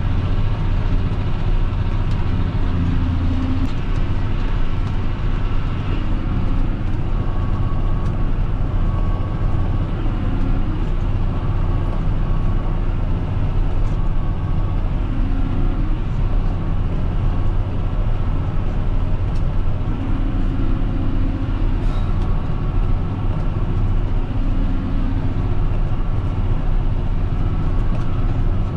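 John Deere 6530 tractor's six-cylinder diesel engine running steadily under the load of a mounted plough, heard from inside the cab as a constant low drone.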